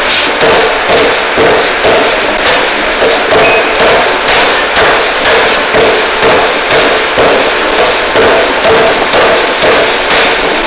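Air forging hammer striking a red-hot workpiece in rapid, evenly spaced heavy blows, about two a second.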